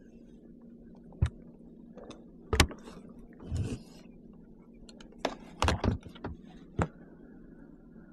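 Several sharp, hollow knocks against a plastic kayak hull, with a short splashing rustle in the middle, as a paddle or fishing gear is handled aboard the kayak on the water.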